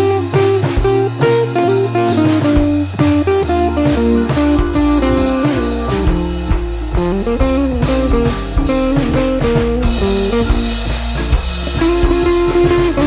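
Background music: a guitar-led instrumental with bass and a drum kit keeping a steady beat.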